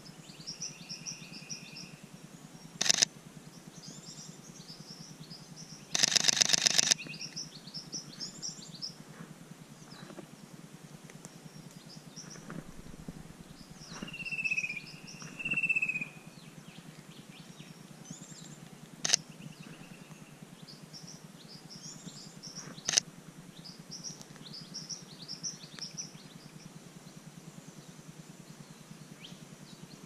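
Camera shutter firing: single sharp clicks and, about six seconds in, a rapid burst lasting about a second, from a Sony a7 III. Small birds chirp continuously in the background, with two longer whistled notes around the middle.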